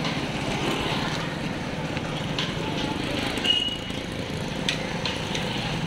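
Busy street traffic, with motor vehicles running steadily and people's voices in the background. There are scattered light knocks and a short high beep about halfway through.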